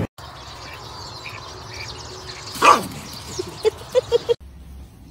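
A dog gives one loud yelp that falls in pitch, then a quick run of about six short, high yips.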